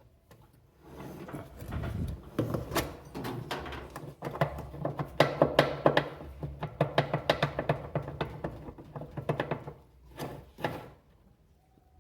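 Brastemp top-load washing machine's drive mechanism knocking and rattling in quick, uneven strokes over a low hum, loudest in the middle and stopping about ten seconds in. The noise comes from play in the pinion shaft, which lets the mechanism scrape and knock.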